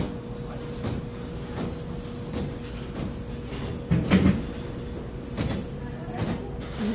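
Restaurant room tone: a steady low hum with a faint continuous tone over it, and a brief low thump about four seconds in.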